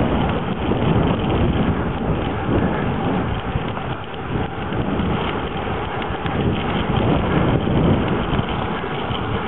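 Wind rushing over the microphone of a camera carried on a moving touring bicycle: a steady noise that swells and dips with the airflow.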